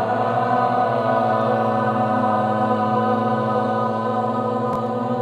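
A long Om chanted by a man's voice, held on one steady pitch without a break; a single faint click near the end.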